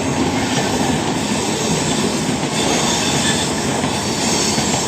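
Indian Railways passenger train running along the track: a steady, loud rumble and clatter of wheels on the rails.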